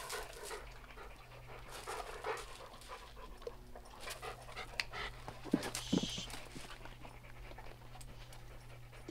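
A yellow Labrador-type dog panting in quick, rhythmic breaths.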